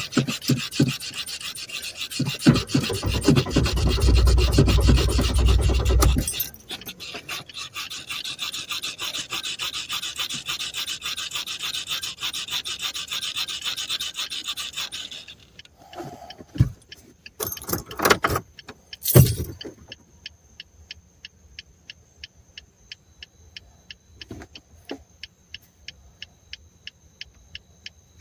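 A car that has run out of fuel being cranked without starting: loud cranking for about six seconds, then a faster, thinner rattling until about fifteen seconds in. A few sharp knocks follow, then a quiet, even ticking of about three or four a second.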